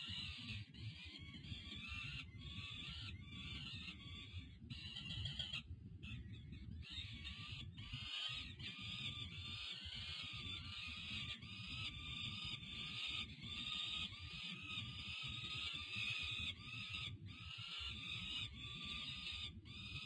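Young peregrine falcons food-begging: many harsh, high, screechy calls overlapping almost without a break, over a low steady rumble.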